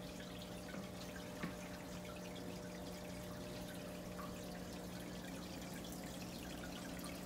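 Aquarium filter running: a steady trickle of water with many small drips and splashes over a low, steady electrical hum.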